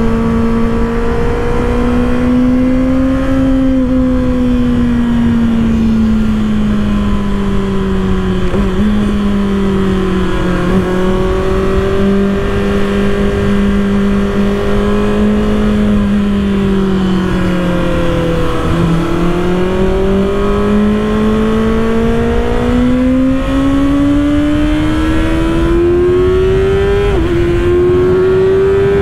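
2024 Kawasaki ZX-6R's inline-four engine running at road speed under wind rush. Its pitch sinks slowly as the bike slows over the first two-thirds, then climbs steadily as it accelerates hard, with a gear change near the end.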